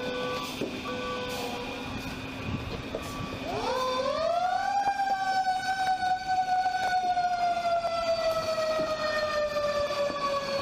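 Emergency vehicle siren winding up steeply about three and a half seconds in, then slowly falling in pitch as it winds down. Before it, two short beeps sound over a steady low hum.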